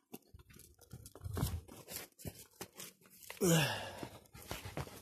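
Scattered light taps and scuffs of a small dog's paws and a ball on patio paving, mixed with rustling from the camera being handled. About three and a half seconds in, a short vocal sound falls in pitch.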